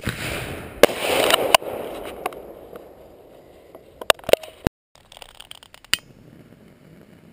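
Consumer firework artillery shell firing from its mortar tube: a sudden launch with a rushing hiss and sharp cracks that fade over a couple of seconds, then a few more sharp pops and scattered crackles.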